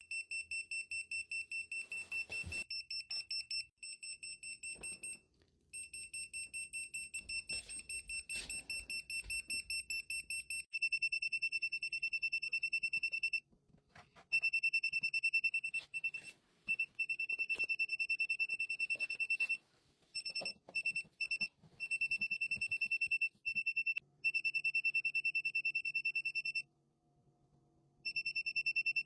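Handheld hidden-camera and wireless-signal detector alarm beeping on one high pitch, going off as it picks up wireless signals. It pulses in rapid beeps at first, then about a third of the way in turns louder and nearly continuous, stopping and restarting in short breaks.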